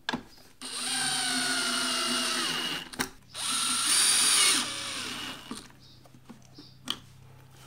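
Cordless drill-driver driving self-tapping screws into the plastic body of a pressure washer: two steady runs of the motor, the first about two seconds long with its pitch sinking slightly, the second shorter and louder, separated by a click.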